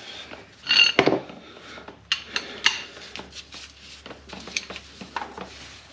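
Metal tools or parts clinking and knocking as they are handled: scattered short clanks, with a louder cluster about a second in and more sharp clicks over the next few seconds.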